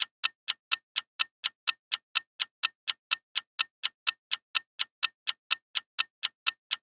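Clock-tick countdown sound effect: a steady run of sharp ticks, about four a second.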